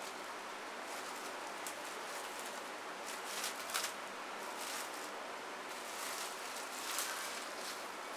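Plastic cling film rustling and crinkling as it is stretched over a bowl and pressed around the rim, with a few sharper crackles about three and a half seconds in and again near seven seconds.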